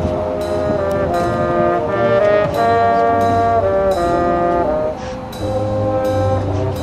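High school marching band playing, its brass holding full chords that change about every second over a low bass line, with sharp percussion hits on top. The sound dips briefly about five seconds in.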